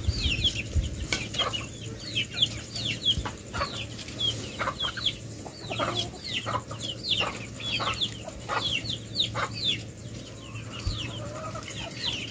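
Chickens peeping and clucking: a steady run of short, high calls that fall in pitch, several a second, typical of chicks. Now and then a light knock from hand weeding.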